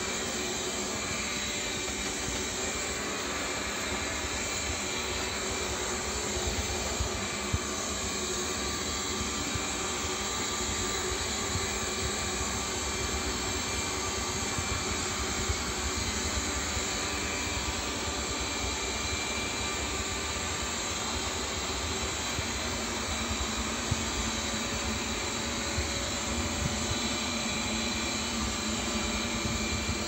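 Robot vacuum cleaner running steadily as it drives and cleans, with a few brief knocks.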